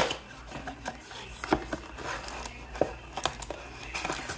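Cardboard trading-card blaster box being handled and opened by hand: a sharp click at the start, then scattered taps, clicks and scraping of cardboard under the fingers.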